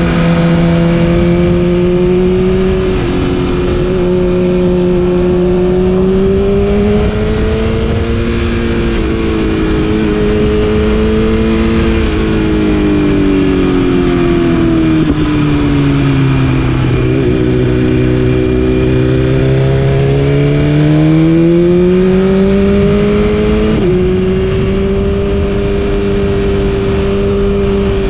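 BMW S1000RR inline-four through an Akrapovic exhaust, running at steady part-throttle revs. The pitch holds, sinks slowly through the middle, climbs back, then jumps up suddenly near the end.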